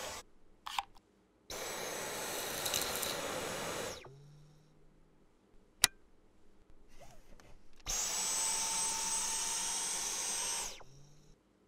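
Dyson V11 Animal cordless stick vacuum running in two bursts of about two and a half seconds each, a rush of air with a steady high-pitched motor whine, each starting and stopping abruptly. Between them, a single sharp click as the crevice tool is fitted.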